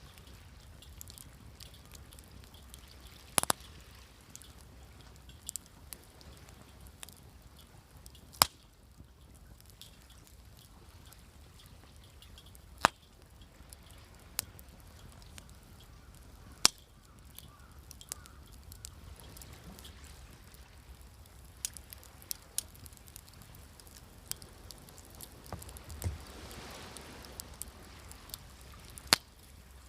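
Wood fire crackling, with sharp single pops every few seconds, over a low steady wash of sea waves that swells briefly near the end.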